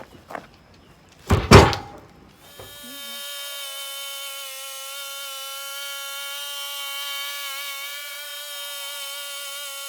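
A couple of knocks and a heavy thud about a second and a half in, then a portable sawmill starts a steady high whine with many overtones that holds without change.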